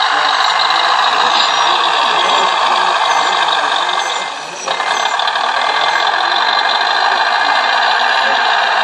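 Radio-controlled Wedico-scale Scania 140 model truck running with a steady mechanical rattle, dipping briefly about halfway through and coming straight back.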